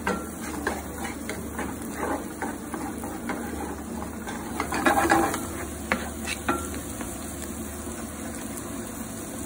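Wooden spatula stirring and scraping egg and pancetta in a nonstick frying pan, over a steady sizzle. The strokes are loudest about five seconds in and thin out after about seven seconds, leaving the sizzle.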